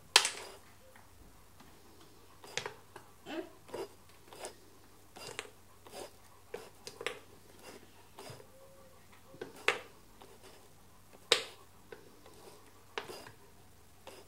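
Irregular light clicks and taps as small cut pieces of dog treat are picked off a wooden cutting board and dropped into a dog bowl, a few sharper clacks among them.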